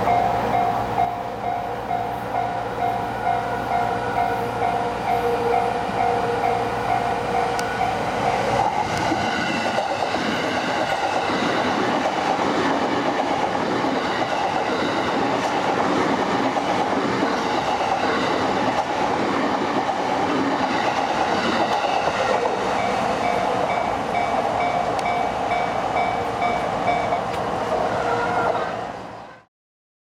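Level crossing alarm ringing in a steady run of repeated dings. From about eight seconds in, a JR East E231-500 series Yamanote Line electric train runs past over the crossing, its wheels clattering on the rails. The dings are heard again near the end.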